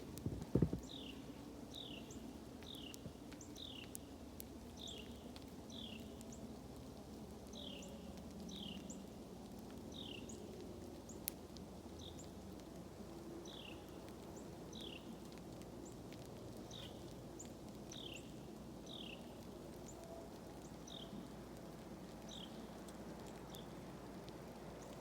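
A bird calling a short, high note that falls in pitch, over and over, about once a second, over a faint steady background. There are a few sharp knocks in the first second.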